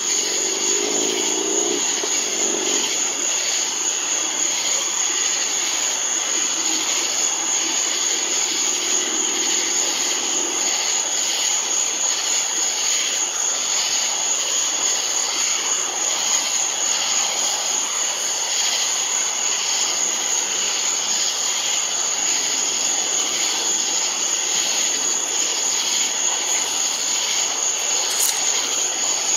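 Steady, high-pitched outdoor night drone of an insect chorus, with a faint low hum in the first ten seconds or so.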